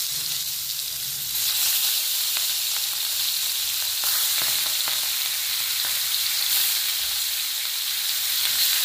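Fish steaks frying in hot oil in a small pan: a steady, loud sizzle with scattered crackles and pops.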